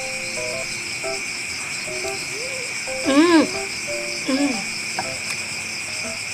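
Crickets and other insects trilling steadily. A short hummed voice sound rising and falling in pitch, loudest about three seconds in and again briefly past four seconds, over soft background music notes.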